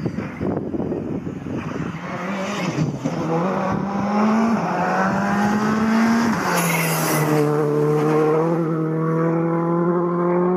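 Skoda Fabia RS Rally2 rally car's turbo four-cylinder engine accelerating hard, its note climbing in steps through the gears. About two-thirds of the way in it passes with a short rush of noise, and the note drops, then climbs steadily as the car pulls away.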